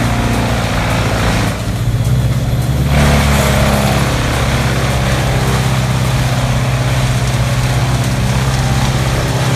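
Vermeer BC2100XL wood chipper's Cummins diesel engine running steadily, with a broad rushing noise over the engine hum. The higher noise drops away for about a second and a half about two seconds in, then returns.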